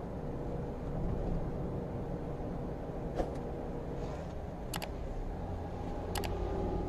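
Steady road noise and engine hum inside a moving car. A heavier low drone comes in about five seconds in as an oncoming dump truck nears. Sharp mouse-click sound effects come from the on-screen subscribe animation, once around three seconds in, then twice more about a second and a half apart.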